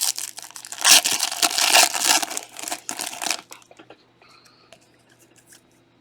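Foil trading-card pack wrapper being torn open and crinkled, a loud crackling for about three and a half seconds, then a few faint ticks.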